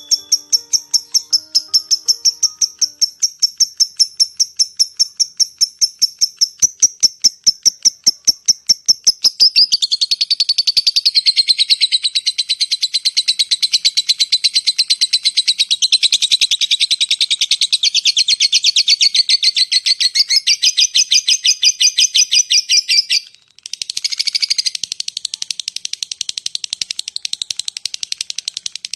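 Lovebird singing its long 'ngetik' (typing) song: a rapid, unbroken rattle of sharp repeated chirps. The notes turn denser and lower about ten seconds in, and break off briefly near the end before going on.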